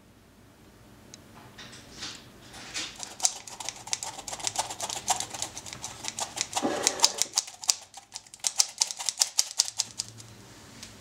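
Metal flour sifter rattling in rapid taps, several a second, as cake flour is sifted into the batter in a bowl; the tapping starts a few seconds in and stops near the end.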